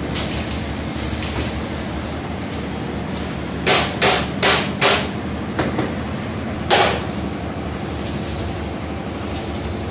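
Angle grinder biting into a steel frame in short, harsh bursts: four in quick succession, a couple of weaker ones, then one more, over a steady background hum.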